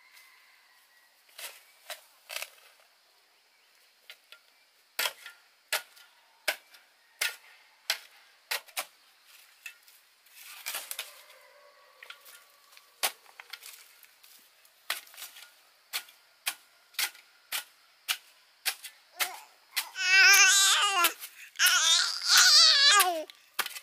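A long run of sharp knocks or taps, roughly one to two a second. Near the end a small child cries loudly in wavering wails.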